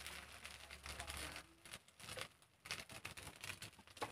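Faint sizzling of small cakes cooking in a dimpled pan, dying away over the first second and a half, then scattered small ticks and crackles.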